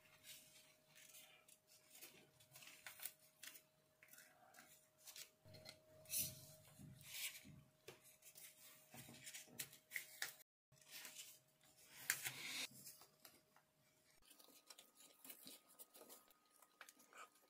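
Faint handling sounds of a wooden handle being fitted onto a polished steel putty-knife blade: soft rubbing and scattered light clicks of gloved hands on wood and metal.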